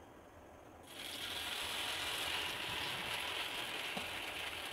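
Moong dal batter sizzling on a hot, oiled nonstick tawa over high heat, with a steady crackling hiss that starts about a second in as the batter hits the pan.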